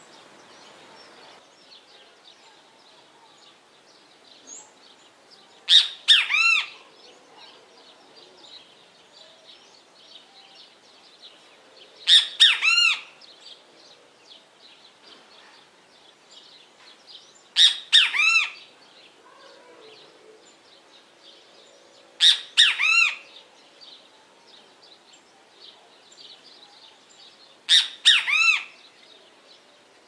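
Great kiskadee calling its loud "bem-te-vi" call five times, one call every five to six seconds. Each call lasts about a second and falls into a few quick parts.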